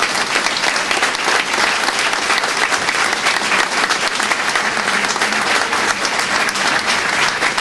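An audience applauding, a dense, steady patter of many hands clapping that lasts throughout.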